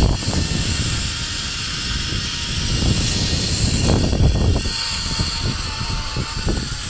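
Wind rushing and buffeting over the microphone during a fast zipline ride, with the trolley's pulleys rolling along the steel cable. A faint thin whine comes in about two-thirds of the way through and drops slightly in pitch.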